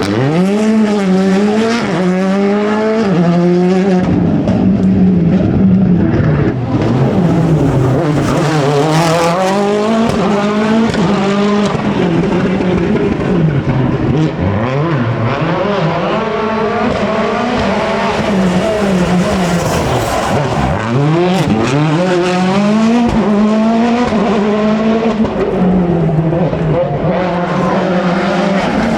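Rally car engines at full attack on a stage, revving hard with the pitch climbing and dropping again and again as the cars pass.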